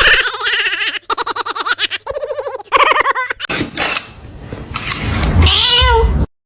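A high-pitched voice in quick pulsing bursts for about three seconds, then a rustling noise. Near the end comes a short wavering cry that rises and falls.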